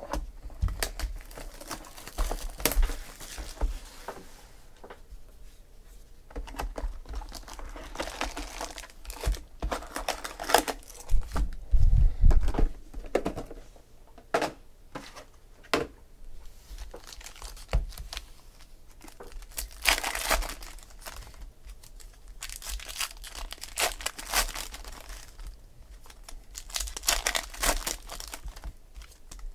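Foil packs of Panini Prizm football cards being handled, crinkled and torn open, with cardboard box handling. A louder, duller stretch of handling noise comes near the middle.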